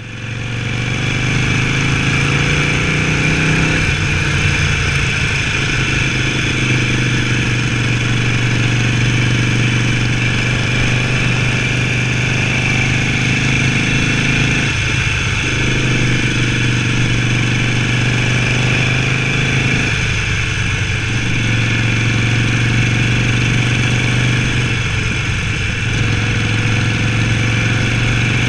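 Harley-Davidson Sportster Forty-Eight's air-cooled V-twin running steadily under way, heard from the rider's seat. The engine note changes briefly a few times as the throttle is worked through the bends.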